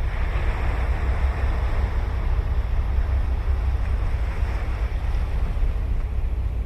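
Ocean waves breaking and washing ashore, one wash swelling near the start and fading, another rising about four to five seconds in. Wind rumbles on the microphone throughout.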